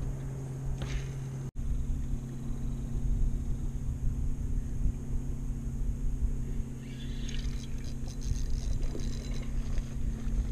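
Steady low hum of an electric motor on a bass boat, over a low rumble, with a short patch of faint clicking about seven seconds in.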